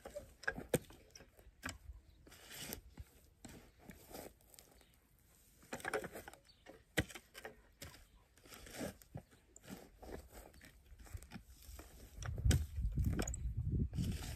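Spade digging dry garden soil: scattered crunches and scrapes as the blade cuts in and turns over clods. A louder low rumble sets in near the end.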